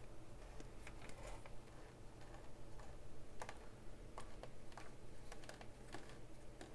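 Faint, irregular clicks and ticks from the hand-turned film advance of a homemade laser-cut camera, winding 120 roll film onto the take-up spool, about one or two clicks a second.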